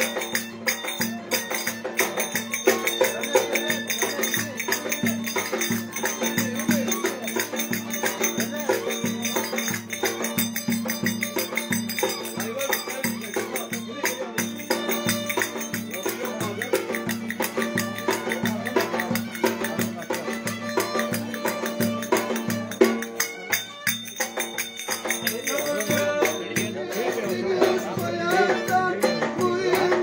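Violin and davul drum playing a Turkish folk tune together, the drum beating a steady rhythm under the bowed melody.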